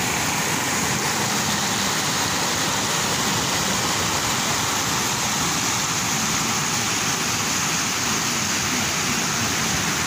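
Water rushing over a rock slope in a small cascade, a steady unbroken rush.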